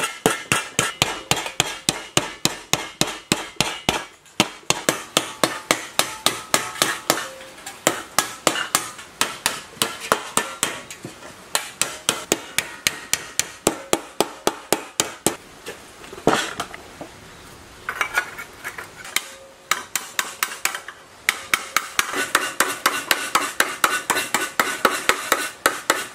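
Hammer beating dented pressed-steel electric-motor covers back into shape: rapid metallic blows, about three a second, each with a short ring, broken by a few brief pauses.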